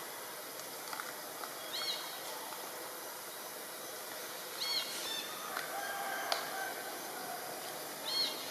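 Three short, high chirping calls about three seconds apart, over a steady hissing forest background. A longer, lower pitched call comes about two thirds of the way in, with a single sharp click.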